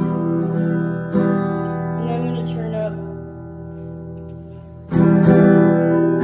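Acoustic guitar strumming: a chord struck about a second in and another about five seconds in, each left to ring and fade.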